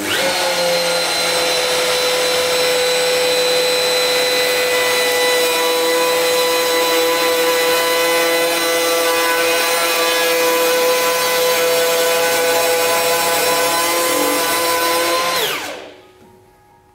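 Festool router with a large slab-flattening bit cutting across an olive ash slab on a flattening jig: a steady high whine over the noise of the cut. Near the end the router is switched off and its whine falls away as it spins down.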